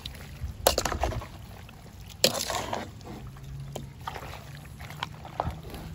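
A metal ladle stirring wet stewed meat in a large aluminium pot: wet, sloshing stirring with several short scrapes and knocks against the pot, the loudest about two seconds in.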